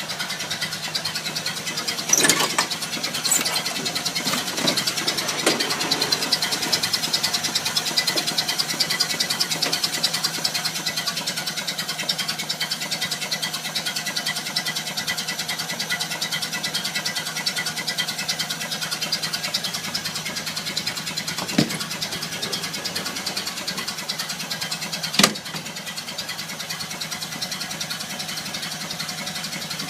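1930 Ford Model A four-cylinder engine running steadily with an even, rapid beat. A sharp bang comes about two seconds in and two more in the last third, after which it runs a little quieter.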